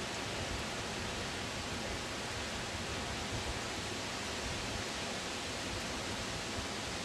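Steady, even hiss of storm wind, with a low, unsteady rumble of wind on the microphone.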